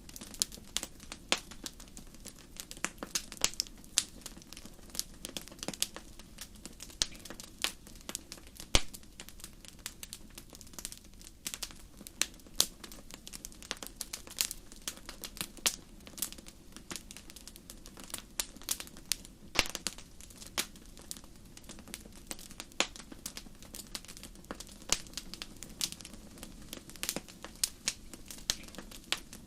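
Wood fire crackling and popping in a fireplace: many sharp, irregular snaps over a low steady hiss of burning.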